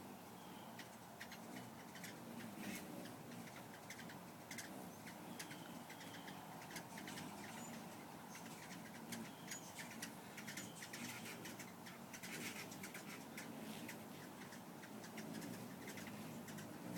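Hummingbirds at feeders giving many short, high chip notes and brief twitters, faint and scattered throughout.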